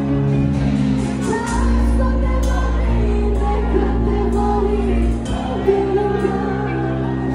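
A woman sings through a microphone over a live amplified band. A deep bass note is held through the middle.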